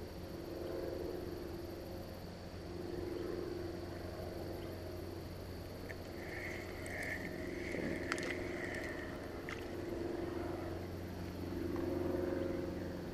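A spinning reel is cranked for about three seconds near the middle, a light whirring with a couple of sharp clicks. Underneath runs a steady low hum that swells and fades every few seconds.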